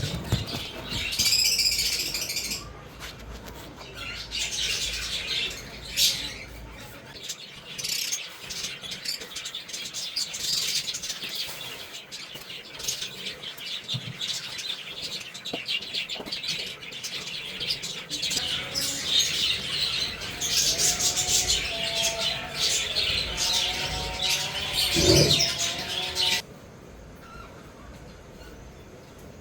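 A flock of budgerigars and lovebirds chattering and chirping continuously, with some wing flapping and a knock near the end. The chatter cuts off suddenly shortly before the end, leaving a quieter background.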